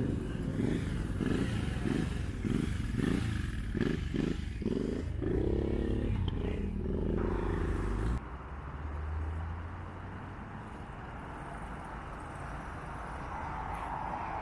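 Motorcycle and moped engines pulling away one after another, their pitch rising again and again as they accelerate. About eight seconds in, the sound drops suddenly to a quieter, more distant engine noise that slowly builds near the end.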